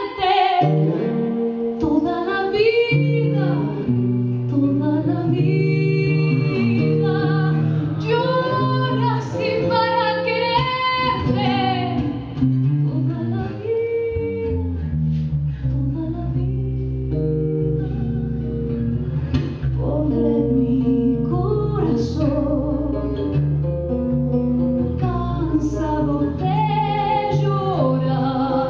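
A woman singing into a microphone, accompanied by a man playing acoustic guitar.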